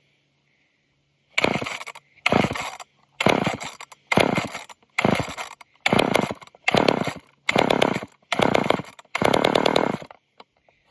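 Old two-stroke chainsaw being pull-started again and again: nine quick pulls of the recoil starter, about one a second, each a short burst of cord and cranking engine noise. The saw has just almost fired but has not yet caught. The last pull runs a little longer.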